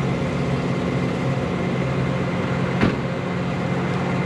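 Steady drone of a tow truck's engine and road noise heard while driving, with one sharp click a little under three seconds in.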